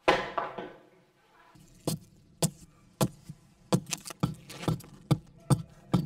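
A hatchet chopping into a wooden block on a stump: one heavy chop at the start that rings on for about a second, then quicker, lighter strokes about two a second as the block is trimmed, roughed out for a bowl.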